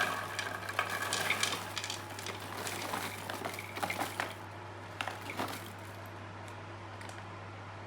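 Crinkling and rustling of a hot microwave popcorn paper bag being handled and opened, busiest in the first four seconds with a few more crackles about five seconds in, over a steady low hum.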